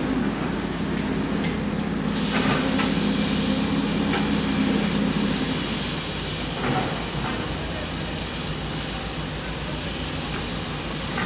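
Komatsu excavator's diesel engine running steadily at the demolition site, with a broad hiss setting in about two seconds in and a few faint knocks of debris.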